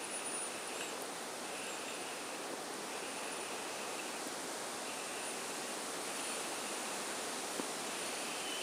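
Steady hiss of outdoor background noise, with a faint high-pitched call repeated about every second and a half.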